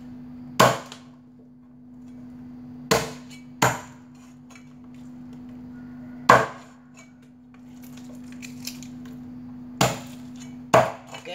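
A cleaver chopping the beaks off raw duck heads on a chopping block: six sharp chops at uneven intervals, over a steady low hum.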